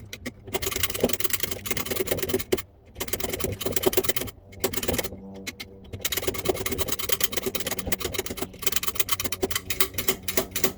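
Lock-opening tool rattling rapidly against the pins of a front door lock cylinder, a dense clicking rasp in long bursts with brief pauses, as the locksmith tries to get past sticky pins.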